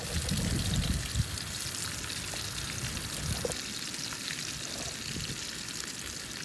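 Rainbow trout sizzling in hot oil in a frying pan, a steady crackling hiss. There is a single knock about a second in.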